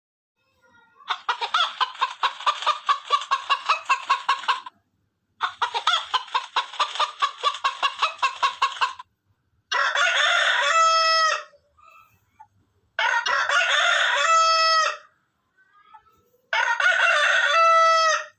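Chicken clucking in two fast runs of about eight clucks a second, each lasting about three and a half seconds, then a rooster crowing three times, each crow about two seconds long and ending in a held note.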